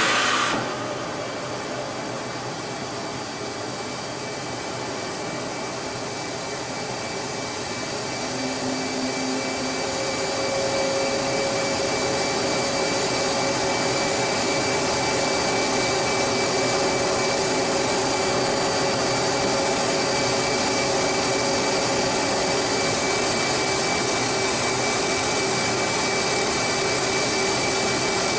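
Steady cockpit noise of a taxiing F/A-18 Hornet: an even rushing hiss of the jet engines and cockpit air, with thin steady high whines. A louder rush drops away just after the start, and the noise grows a little about ten seconds in as a lower hum joins.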